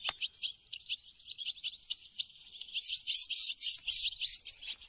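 Shrill high-pitched chirping pulsed evenly at about four a second, growing louder about three seconds in, with one sharp click at the very start.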